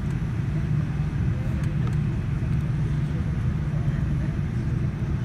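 Cabin noise of a Boeing 787-9 taxiing, heard inside the cabin: a steady low rumble from the engines at idle and the airliner rolling along the taxiway.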